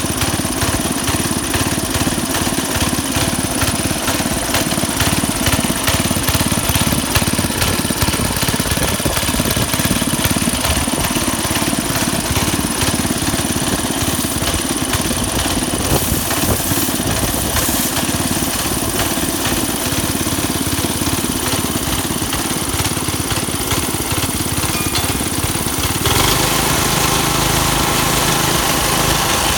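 Small gasoline engine of a homemade air compressor running steadily, driving the compressor pump. Near the end the sound changes to a steadier, more even-pitched drone.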